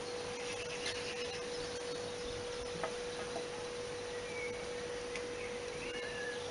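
A steady single-pitch hum over a constant background hiss, with a few faint, short bird chirps in the second half.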